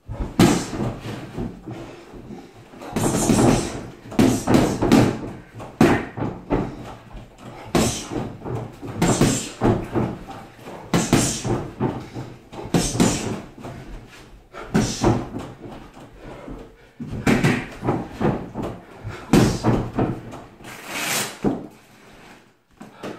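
Boxing gloves punching a freestanding punchbag, a flurry of several quick thuds about every one to two seconds.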